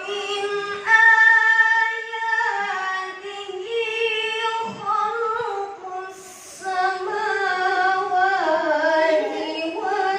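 A young woman's voice reciting the Quran in a melodic, sung style, holding long notes with ornamented turns, with a short breath pause about six seconds in.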